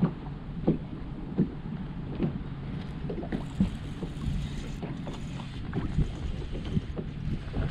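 Small waves slapping against a bass boat's hull in irregular knocks, over a steady low rush of wind and water.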